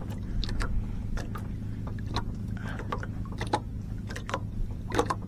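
A boat engine running steadily with a low, even hum, with scattered light clicks and knocks over it.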